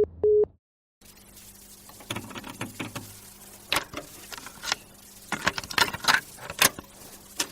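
A telephone's beep tone ends in the first half second, after a short silence. Then irregular clicks, taps and rustling over a low steady hum, like handling noise.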